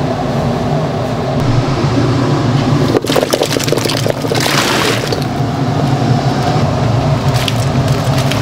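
Steady low roar of a commercial kitchen's gas burner and exhaust fan. It breaks off briefly about three seconds in. A short rushing hiss follows a little later, and chopped vegetables are tipped into a large pot near the end.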